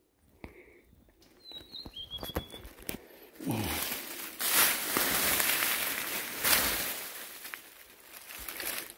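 A few short high bird chirps in the first seconds, then footsteps rustling and crunching through dry leaf litter and undergrowth for about five seconds.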